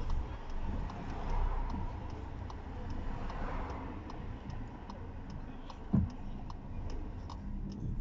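Car turn-signal indicator ticking at an even pace inside a VW Polo's cabin, over a low steady hum. There is one dull thump about six seconds in.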